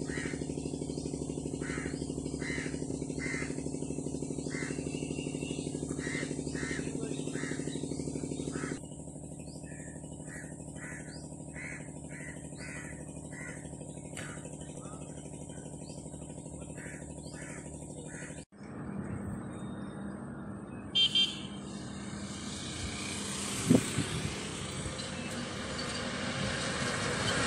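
A steady droning hum with short chirps repeating over it. After a sudden cut about two-thirds of the way in, it gives way to road traffic passing, with a brief double blip and a later single one standing out.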